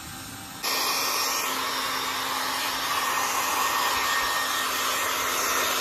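Hand-held hair dryer blowing hot air over a freshly bathed cat's wet fur: a steady rushing noise with a low hum, stepping up sharply in loudness about half a second in.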